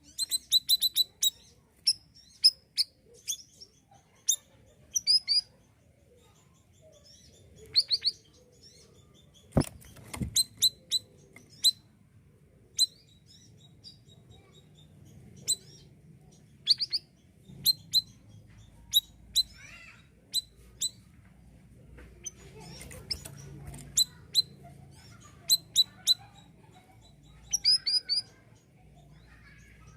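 Male siri-siri songbird singing in a lively run of short, sharp, high chirps, delivered in quick irregular bursts with brief pauses between. A single knock sounds about a third of the way in.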